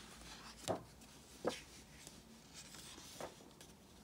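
Paper pages of a picture book being turned and handled: three brief, faint paper rustles and taps.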